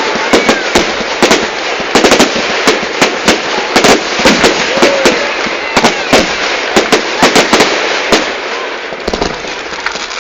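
Fireworks going off in quick succession: many sharp bangs, some nearly on top of each other, over a continuous crackle, with a few faint whistles. The bangs thin out near the end.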